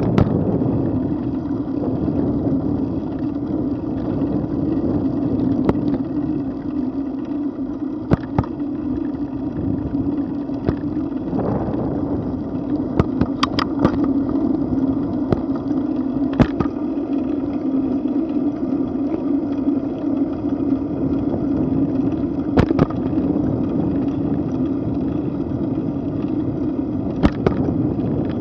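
Bicycle ridden at about 10 mph on an asphalt trail, heard from a camera mounted on the bike: a steady rumble of tyres and wind, with a handful of sharp knocks as the bike jolts over bumps and cracks in the pavement.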